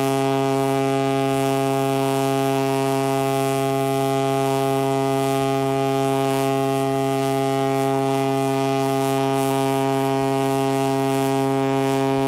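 A ship's whistle sounding one long, steady blast: a single deep tone with many overtones, held unchanged.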